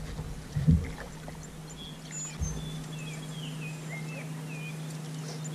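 Small birds chirping, a series of short sliding calls, over a low steady hum, with a couple of dull knocks in the first few seconds.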